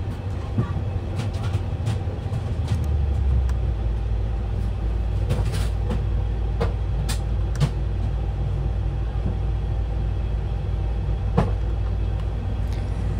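Steady low drone of an Airbus A350's running systems heard in the cockpit while the Yellow hydraulic system is still pressurized, growing stronger about three seconds in. A few light clicks are scattered through it.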